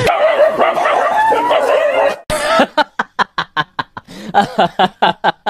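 Laughter mixed with a dog's vocalizing: a wavering pitched sound for about two seconds, then a quick run of short bursts, about four a second.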